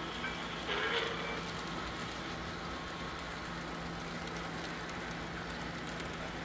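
Model railroad passenger cars rolling past on the track, a steady even rush of wheels on rail.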